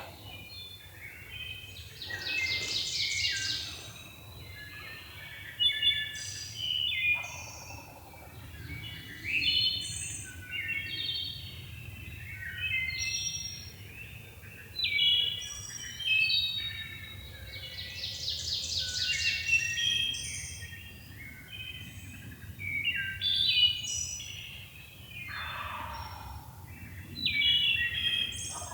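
Several songbirds singing over one another in a chorus of short, varied phrases, with two long, dense trills, one about two seconds in and one near the middle.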